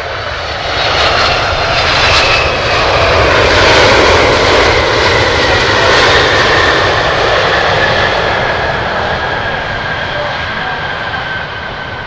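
Boeing 767-300 airliner's jet engines on the landing rollout just after touchdown. Their roar swells about a second in, typical of reverse thrust being applied, then gradually eases, with a whine that glides slowly down in pitch.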